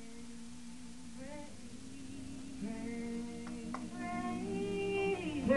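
A woman singing a worship song through a microphone in long held notes, growing louder toward the end.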